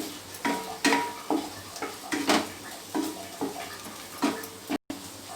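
Crushed ginger and garlic frying in butter in a pan, sizzling steadily, while a spoon stirs them. The spoon scrapes and knocks against the pan about twice a second, each knock ringing briefly.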